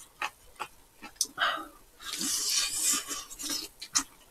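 Close-miked eating sounds: a few short wet smacks and chopstick clicks of chewing spicy braised chicken, and about two seconds in a hiss of sucked-in air lasting about a second, then another sharp click.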